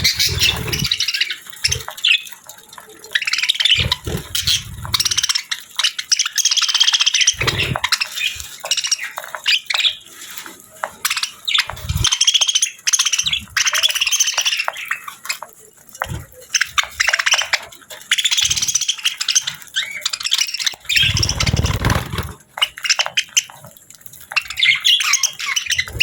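Budgerigars chirping and warbling busily, a dense run of quick high chirps, with a few dull low thumps in between.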